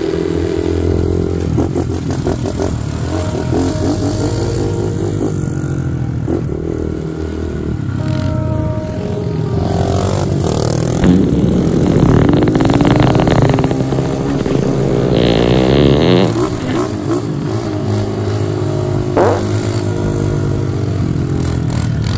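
Several small dirt-bike engines running as they ride, the throttles opened and closed so that the pitch rises and falls, with the most revving in the middle.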